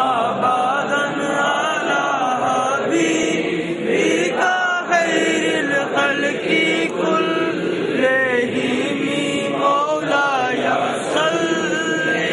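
Devotional qasida being chanted without instruments: a sung melody with long held notes that waver and turn in pitch.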